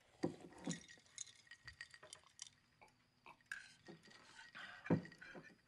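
Cutlery clinking and scraping on dinner plates: scattered small taps and clicks, with a brief scrape a little past halfway.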